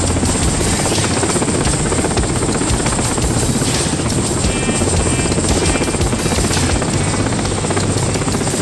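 Mi-8T helicopter hovering close overhead with a load slung beneath it: a loud, steady mix of rapid main-rotor chop and twin turboshaft engine noise.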